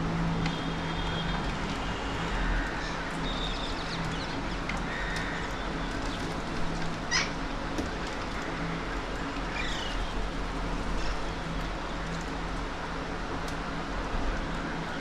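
Birds calling in short chirps, with a sharp call about seven seconds in and a falling call about three seconds later, over a steady low background hum.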